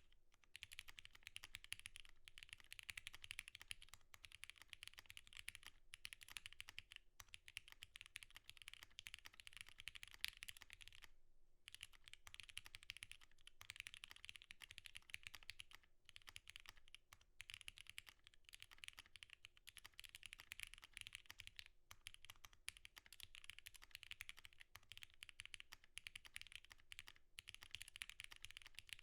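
Typing on a Matrix Vita custom mechanical keyboard with Cherry MX Retooled Black linear switches, lubed with Krytox 205g0 and filmed, and GMK keycaps: fast, continuous keystrokes in runs, broken by short pauses, the longest about eleven seconds in. The sound is fairly faint.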